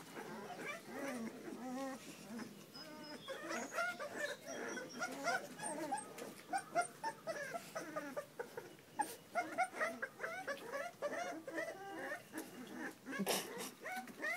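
Several young puppies whimpering and yipping, many short high calls overlapping one another. A single knock sounds about a second before the end.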